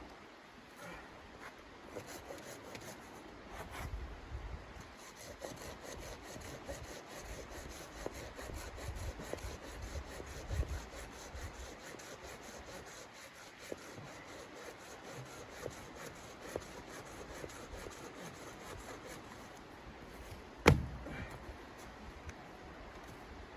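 Quiet rubbing and scraping on wood, with one sharp knock near the end.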